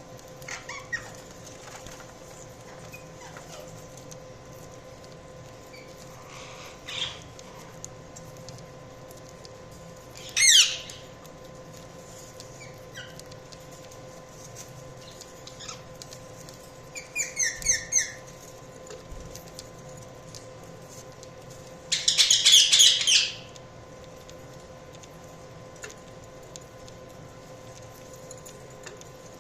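Budgerigars calling now and then over a faint steady hum: one sweeping chirp about a third of the way in, a quick run of short chirps past halfway, and a longer burst of chattering about three-quarters through, the loudest part.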